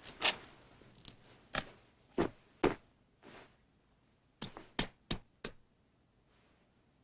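A run of Foley impact effects: about nine sharp knocks and thumps at uneven intervals, several of them loud, ending a little past halfway.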